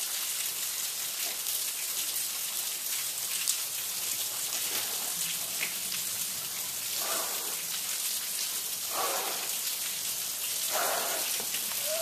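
Steady splashing hiss of a small waterfall's water falling onto the rock and wet sand below the overhang.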